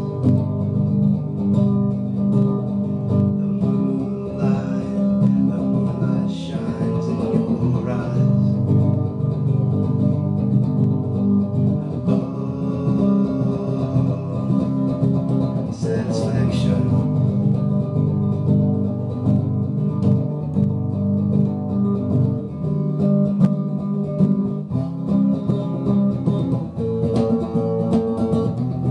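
Blue Stratocaster-style electric guitar played solo, picked chords and notes of an instrumental passage.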